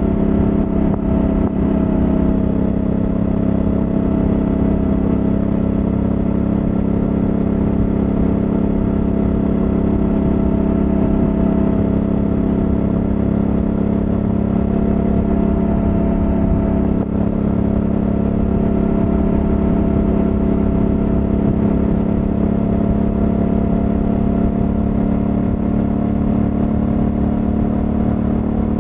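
Honda Africa Twin 1100 DCT's parallel-twin engine on its stock exhaust, running steadily at cruising speed. The engine note holds nearly constant, then rises slightly near the end.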